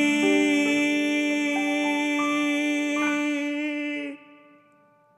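Ending of a pop song sung with piano accompaniment: the singer holds the last note steadily while piano notes enter above it. The music cuts off about four seconds in and dies away to silence.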